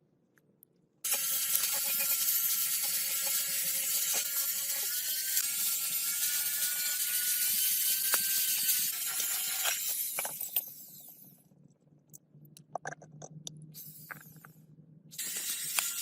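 A power tool running with a steady whine and a dense mechanical rattle for about nine seconds, then winding down. After it come scattered clicks and knocks over a low hum, and the tool starts up again near the end.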